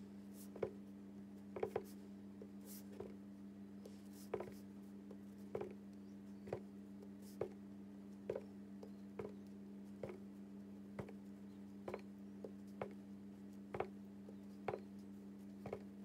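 Clear acrylic stamp block tapping down repeatedly onto cardstock and the ink pad as a small star stamp is printed over and over, faint sharp taps about once a second. A steady low hum runs underneath.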